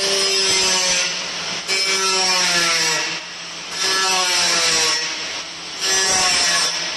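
Kebab skewering machine working in repeating cycles, about one every two seconds: each cycle is a stretch of rubbing, sawing-like mechanical noise with a whine that falls in pitch, then a brief drop in level.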